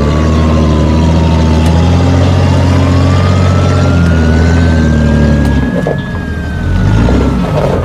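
Full-size truck engine running at low revs while crawling. Over it a thin whine slides down in pitch, climbs back up, then falls again. The engine note shifts about two-thirds of the way through.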